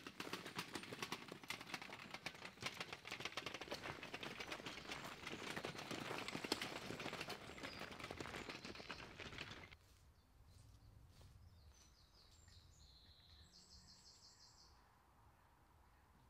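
Wheels of a loaded pull-along garden wagon rattling and crunching over a woodland dirt path, a dense run of clicks that stops abruptly about ten seconds in. After it, quiet outdoor background with a bird chirping briefly.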